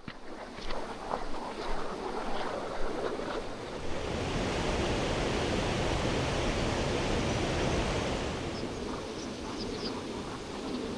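Oirase Stream's mountain water rushing over rocks: a steady noise of flowing water, a little uneven in the first few seconds.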